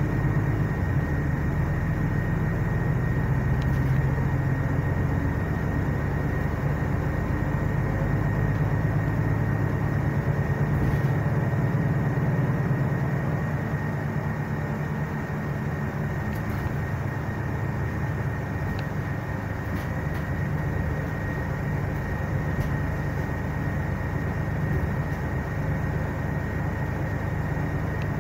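Interior noise of a Mercedes-Benz Citaro C2 articulated city bus: a steady engine drone and deep rumble, with a thin steady high whine above it. The deepest rumble eases about halfway through.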